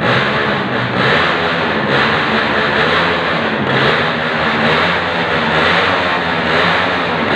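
Small motorcycle engine revving loudly through an open exhaust, its pitch rising and falling as the throttle is worked.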